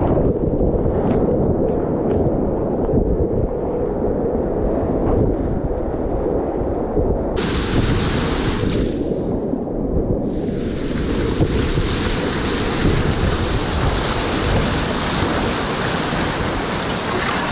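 Whitewater rapids rushing and splashing around a kayak, with water and wind buffeting the camera microphone. Muffled at first, then abruptly brighter and hissier from about seven seconds in.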